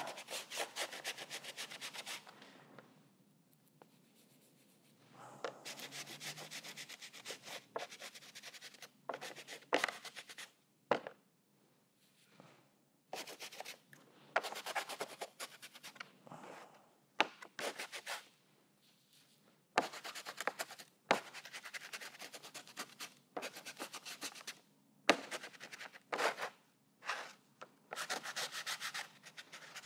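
Paper shop towel rubbing acrylic paint over a joint-compound (sheetrock mud) textured surface on heavy watercolor paper. It comes in spells of scratchy rubbing strokes lasting a second or two, with short pauses between.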